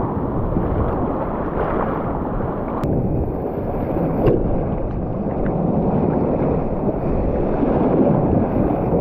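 Sea swell surging and breaking against shore rocks, with wind rumbling on the microphone.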